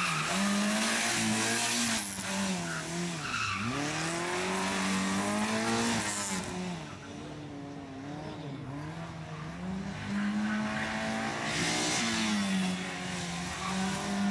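Rally car's petrol engine revving hard and dropping off again and again as the car is flung through a tight slalom, with tyre squeal in the first two seconds, briefly about six seconds in, and again from about eleven to thirteen seconds.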